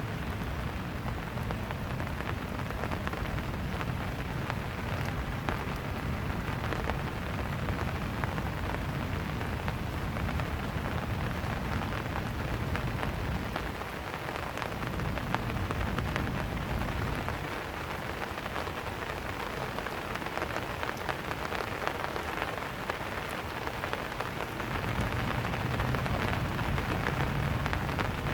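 Steady rain falling in a dense patter, with a low rumble underneath that eases around the middle and swells again near the end.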